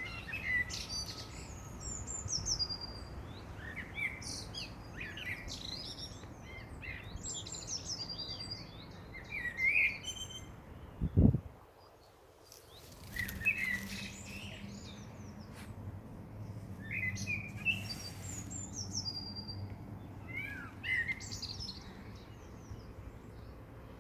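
Garden birds singing: short, repeated whistled and chirping phrases every couple of seconds throughout. About halfway through there is a single low thump, the loudest sound, followed by a moment of near quiet.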